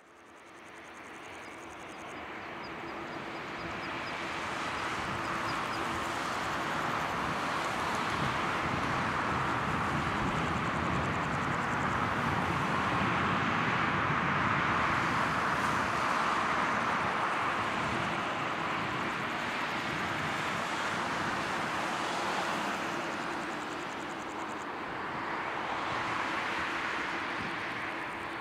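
Jet engines of a taxiing Airbus A321-231, its IAE V2500 turbofans at low thrust, giving a steady rushing whine over a faint low hum. The noise grows over the first several seconds and eases a little near the end.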